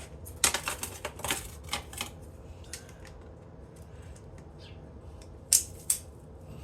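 Hand tools clinking and knocking on metal while a pin is worked out of a copper winding during scrapping: a cluster of sharp clatters in the first two seconds, then two more sharp knocks near the end.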